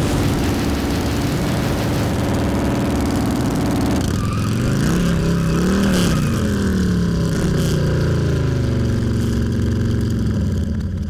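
Motorcycle engine running, revving up about four seconds in to a peak near six seconds, then dropping back and settling at a steady lower speed.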